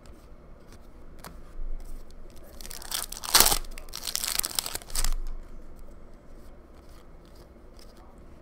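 Foil wrapper of a hockey card pack being torn open by hand, a crinkly tearing and rustling that starts about two and a half seconds in and lasts about two and a half seconds. Light clicks of cards being handled come before and after.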